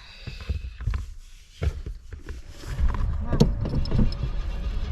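A few clicks and knocks, then from about three seconds in the starter of a Cadillac Coupe de Ville cranks the engine over with a steady, rhythmic churn. This is a hard-starting car that won't fire.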